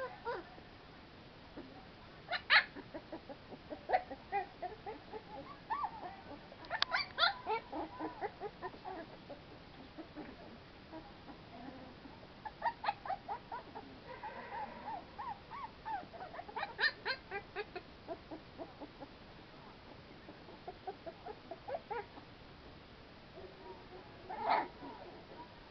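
Very young American Pit Bull Terrier puppies squeaking and whimpering as they crawl over each other, in short high calls that come in scattered clusters with quieter gaps between.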